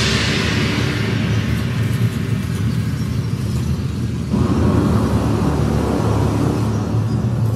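Wind orchestra playing a low, rumbling passage after a loud climax, with no clear melody. More of the band's sound comes in about four seconds in.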